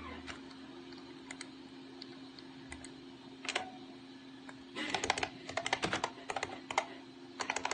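IBM Model M buckling-spring keyboard being typed on as a test: a few scattered key clicks, then a quick run of clatter about five seconds in, with more just before the end.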